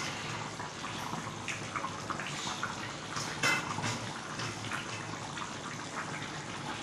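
Chicken curry simmering in an aluminium kadhai over a lit gas burner: a steady hiss with scattered bubbling pops, one louder pop about halfway through.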